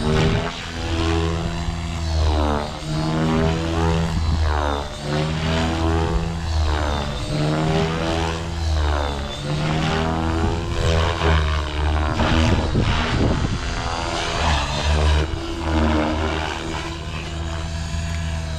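Blade Fusion 550 electric RC helicopter flying overhead: its motor and main rotor whine, the pitch sweeping up and down again and again as it passes and maneuvers.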